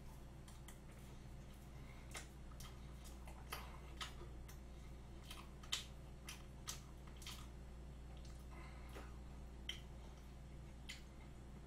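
Faint, irregular wet clicks and smacks of a mouth chewing a mouthful of chocolate cream cake, over a steady faint low hum.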